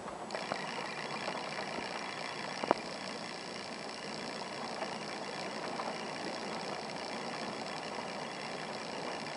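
Steady rain falling, with an occasional sharp drip or tick, the loudest about two and a half seconds in. A steady high whine of several pitches switches on abruptly just after the start and holds on.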